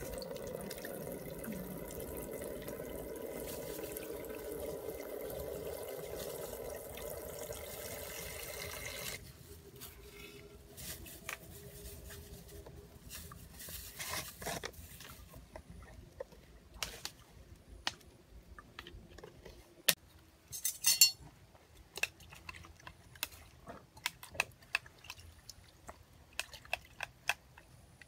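Water running from the tap of a large bottled-water dispenser into a plastic basin, steady for about nine seconds and then cut off. After it come small splashes, clicks and knocks of hands working in the basin of water, with one louder clatter about twenty seconds in.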